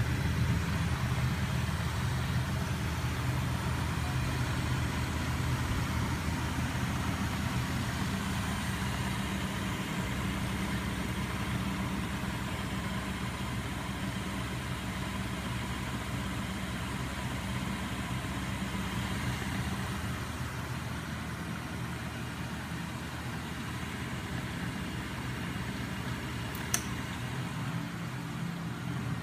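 Homemade magnet-crankshaft machine running steadily under a 12-volt DC electric starter motor, its flywheel and crankshafts spinning with an even mechanical hum. A single sharp click near the end.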